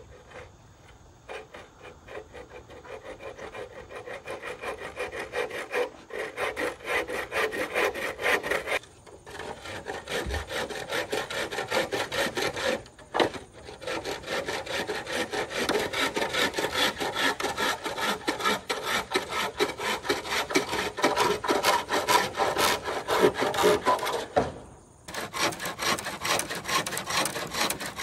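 Fast, rhythmic rasping strokes, about three a second, like something being sawn or scraped by hand. The strokes build up over the first few seconds and stop briefly three times, about 9, 13 and 25 seconds in.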